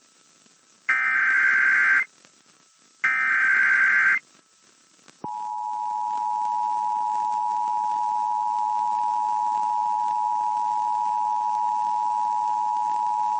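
Emergency Alert System broadcast for a Child Abduction Emergency (Amber Alert). The last two of the three SAME header data bursts each last about a second, a second apart. About five seconds in, the steady two-tone EAS attention signal starts and holds.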